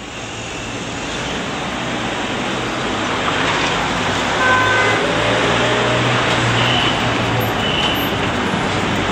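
City road-traffic noise, a steady rush of passing vehicles that fades in over the first few seconds and then holds, with a few short high tones about halfway through and again later.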